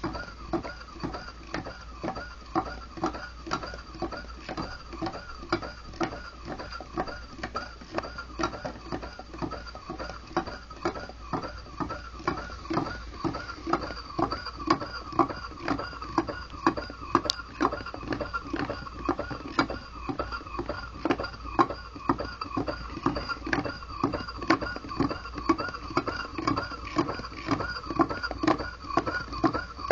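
Homemade Stirling engine built from two Pringles tubes, with a gravity-driven displacer hung on cotton thread, running at about 100 rpm. It makes a steady, rhythmic mechanical beat, a little under two a second, with a warbling tone that rises and falls with each stroke.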